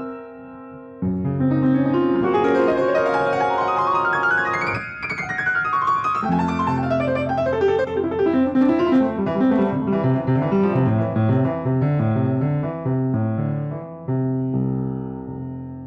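Piano playing: a quick run of notes climbing high, then cascading back down into low chords, with a final chord held about a second and a half from the end and fading away.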